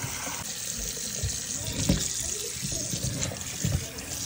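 Kitchen tap running into a stainless steel bowl of raw chicken pieces in a sink, the water splashing steadily over the meat. A few low thumps stand out, the strongest about two seconds in.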